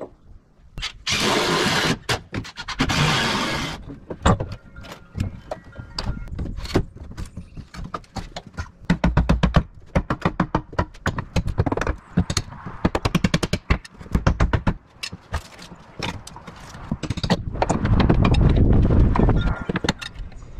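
Knocks, taps and scrapes of hands-on carpentry work, some in quick runs, with two short rushes of noise near the start. Near the end, wind buffets the microphone.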